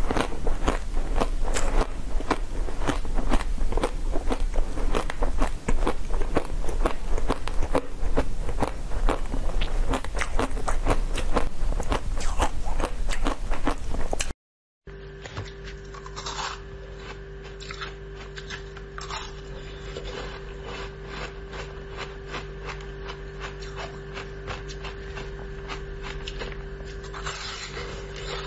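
Close-up eating sounds: biting and chewing a frozen mushroom-shaped dessert, with dense crisp crackling and crunching. About halfway it cuts to a quieter stretch with a steady low hum and only a few soft bites and mouth sounds.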